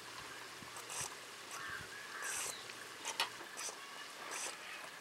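Sliced onions and green chillies frying in oil in a clay pot: a quiet sizzle with short crackling spits every half second or so and one sharper pop about three seconds in.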